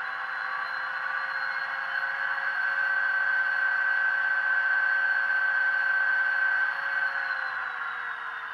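HO-scale SD40-2 model's ESU sound decoder playing the simulated EMD diesel engine at full throttle (notch 8) through the model's small speaker: a steady drone with a high whine. About seven seconds in it starts to wind down in pitch as the throttle is eased off.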